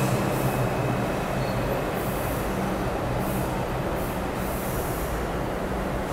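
R62A subway train pulling into the station and slowing to a stop: steady wheel and rail rumble under a low hum, with several short high hisses from about two seconds in.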